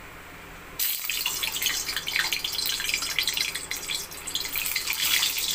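Hot mustard oil sizzling and crackling as a peeled, slit boiled egg fries in it in a wok, starting suddenly about a second in.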